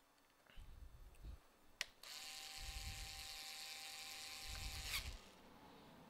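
Small electric precision screwdriver running steadily for about three seconds and then stopping sharply, driving in the screw that holds a laptop DC jack. A click comes just before the motor starts, and there are a few dull knocks of handling against the laptop.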